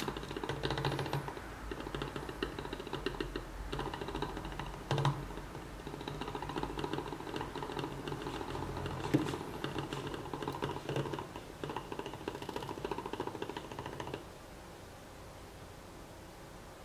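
Homemade three-piston drink-can Stirling engine running as a generator, its pistons making a fast, steady clicking rattle. The rattle cuts off suddenly about fourteen seconds in, leaving faint hiss.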